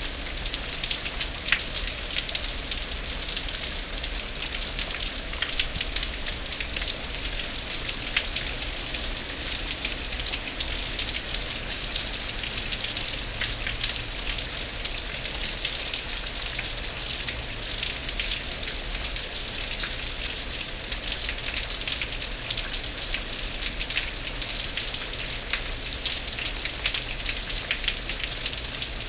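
Heavy rain falling steadily on grass and pavement: an even hiss with many sharp drop ticks.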